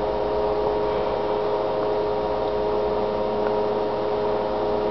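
Steady electrical hum: several constant tones over a background hiss, unchanging throughout.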